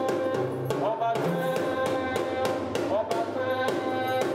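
Music with drums and held melodic notes that slide up in pitch every couple of seconds.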